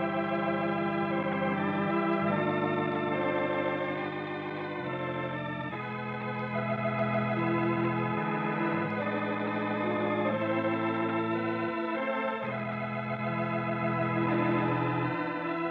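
Organ playing the program's closing music: sustained chords that change every second or two.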